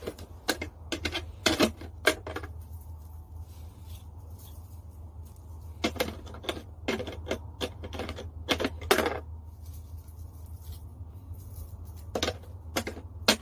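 Sharp clicks or taps, in clusters about half a second apart, over a steady low hum.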